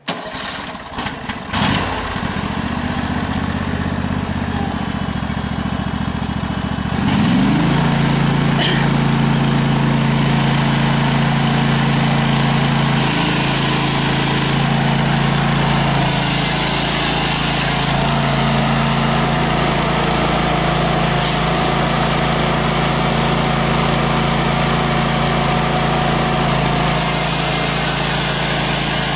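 The hydraulic power unit's Briggs & Stratton Vanguard 18 HP V-twin gas engine is cranked and catches within about two seconds, runs at low speed, then speeds up with a rising pitch about seven seconds in and runs steadily at the higher speed to drive the hydraulics. Over it the ICS 823 hydraulic concrete chainsaw's chain is run in short stretches, and near the end it starts cutting into a concrete block.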